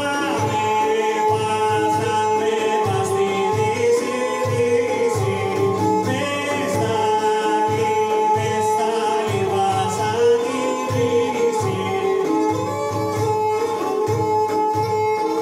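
Live Greek folk song: a man singing over plucked lute and oud, a kanonaki zither, and a steady beat from a frame drum.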